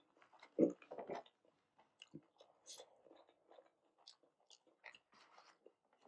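Close-miked chewing of soup dumplings: soft wet mouth clicks and smacks, with a louder burst of noise about half a second in.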